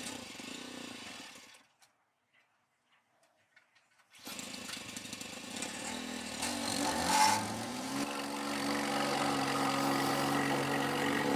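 Power Horse plate compactor's gas engine being started: after a short stretch of near silence, engine noise comes in about four seconds in with a loud burst around seven seconds. From about eight seconds it runs steadily.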